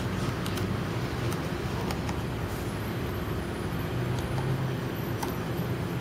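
A steady low rumble of background noise, with faint light clicks of a small screwdriver working the tiny screws inside a white MacBook's battery bay.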